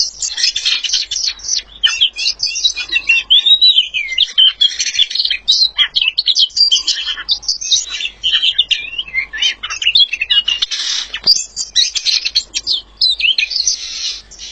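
A songbird singing a long, loud, rapid and varied song of chirps, trills and whistled glides, which stops abruptly right at the end.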